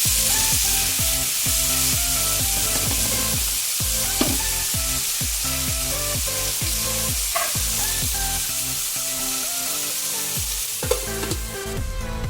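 Food sizzling in hot oil in a pan while being stirred, with a few sharp knocks of the spatula against the pan. The sizzle fades near the end.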